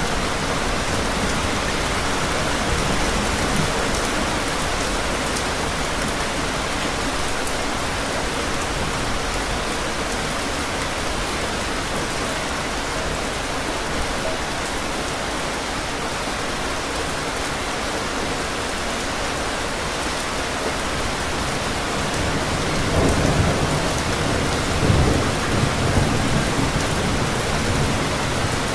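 Steady heavy rain falling on hard ground, with rolls of low thunder swelling up near the end.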